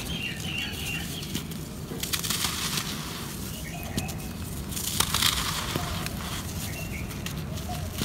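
Hands crushing a compacted block of dry red dirt, giving crisp crunching and crackling with grains trickling off. The crunching comes in bursts, loudest about two seconds in and again about five seconds in.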